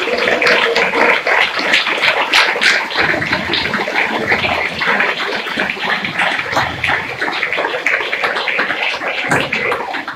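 Crowd applauding: many hands clapping at once in a dense, steady patter.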